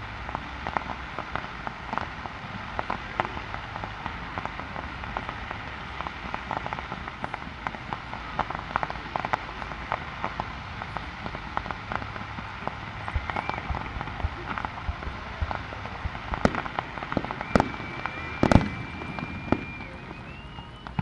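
Fireworks display: a dense, continuous crackling of crackle-effect stars. About three-quarters through come a few louder bangs of shells bursting, the loudest a little before the end, together with a steady high whistle.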